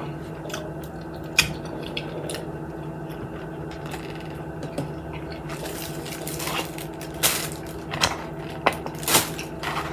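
Scattered light clicks, taps and crinkles of a takeout food container and its wrapping being handled, over a steady low hum. The clicks come more thickly in the second half.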